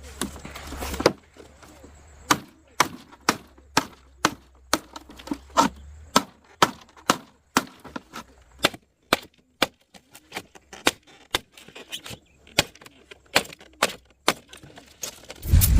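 Wood being chopped by hand: a long run of sharp chopping strikes, about one to two a second at an uneven pace.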